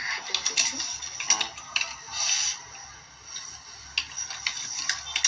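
Irregular clicking of keys being typed on a keyboard, with a short rustle about two seconds in.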